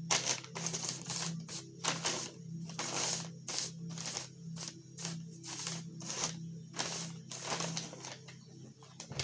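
Electrostatic static grass applicator humming steadily while it is shaken, with crisp rustling strokes about three times a second.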